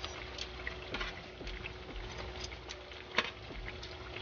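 Sweet chili sauce bubbling and sizzling around fried chicken wings in a metal pan over raised heat, with many small pops. One sharp click of the metal tongs on the pan about three seconds in.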